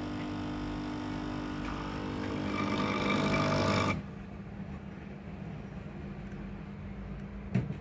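Nespresso coffee machine's pump humming as it brews, growing louder and coarser before cutting off sharply about four seconds in. A short click comes near the end.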